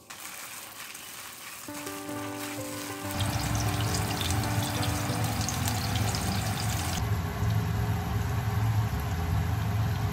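Hamburger-steak patties frying in oil in a pan: a dense crackling sizzle that comes in loudly about three seconds in and keeps going.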